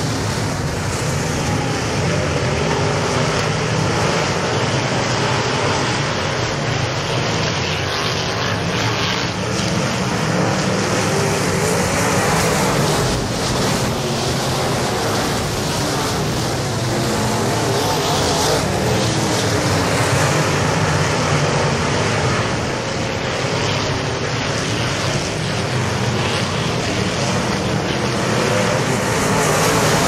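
A pack of dirt-track modified race cars at racing speed, their V8 engines blending into one dense, steady wash of engine noise that rises and falls only slightly as the field circles the track.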